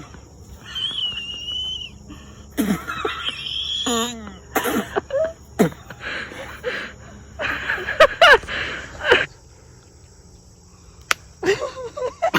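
Two women laughing helplessly: wheezing, high squeals and gasping breaths, with a shaky cackle a few seconds in, dying down briefly near the end before starting again.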